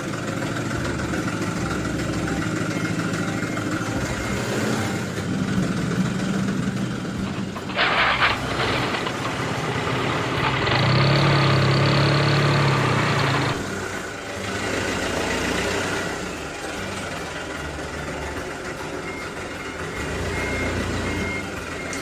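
Truck engine running steadily, with a short burst of clatter about eight seconds in and a louder stretch from about eleven to thirteen seconds.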